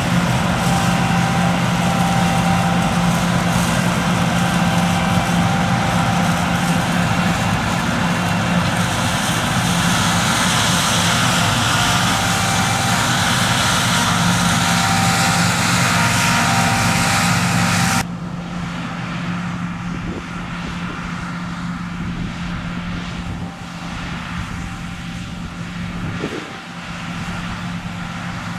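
Fendt 6275 L combine harvester running steadily, an engine hum under the rush of the threshing and cleaning machinery. About two-thirds of the way through, the sound drops suddenly to a quieter, duller hum.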